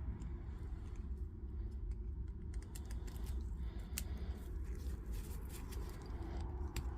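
Occasional faint clicks of small metal chuck parts being handled and fitted back onto an impact driver, over a steady low hum.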